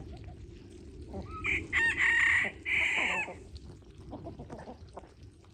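A rooster crows once, a long loud call from about a second and a half in to past three seconds, with chickens clucking around it.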